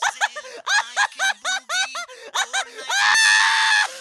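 High-pitched cartoon voice laughing mockingly in rapid short cackles, several a second, breaking into one long shrill shriek of laughter about three seconds in.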